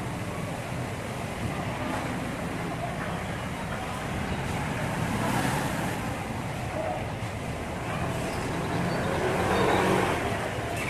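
Road traffic noise, a steady rush of passing vehicles that swells twice, about halfway through and near the end.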